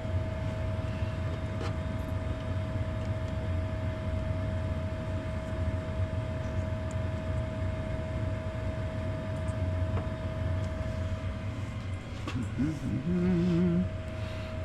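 Gas furnace running: a steady low rumble with a constant whine over it. Near the end a person briefly hums.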